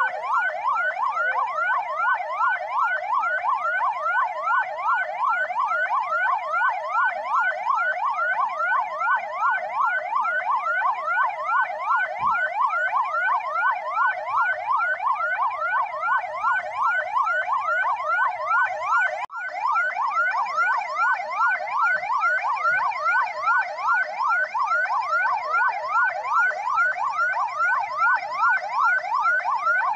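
Ambulance electronic siren wailing in a fast, evenly repeating rising sweep (yelp pattern), with a momentary break about two-thirds of the way through.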